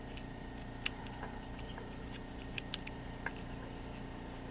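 A few scattered light clicks and taps of small parts being handled as the power switch plug and its wires are worked through a tight hole in the RC truck, over a faint steady hum.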